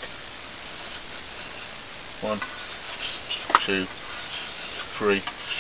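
A sharpening stone rubbed along the steel edge of a Cold Steel Latin machete clamped in a vise, making a soft, steady scraping of stone on steel. A single sharp click comes a little past the middle.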